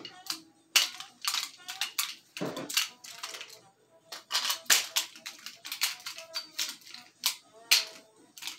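Airsoft revolvers being spun, caught and handled: an irregular run of sharp plastic-and-metal clicks and clacks, some with a short ring, and a duller thud about two and a half seconds in.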